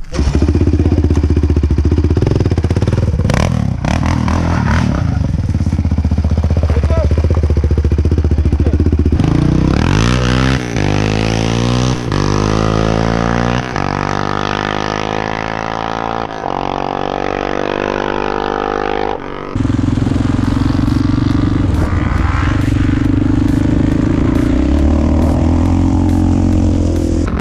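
Yamaha sport quad with a swapped-in Kawasaki ER-6 parallel-twin engine running steadily, then accelerating hard from about nine seconds in, the revs rising and dropping back with each gear change. After a sudden cut about twenty seconds in, the engine runs at steady high revs.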